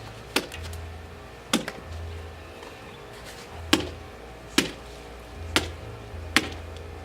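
A small hammer striking a watermelon six times with the sharp side of its head, each blow a sharp smacking crack into the rind. Background music with a low bass line plays underneath.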